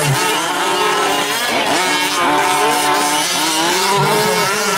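Small two-stroke gas engines of several 1/5-scale RC trucks running at once, each rising and falling in pitch as it revs up and backs off.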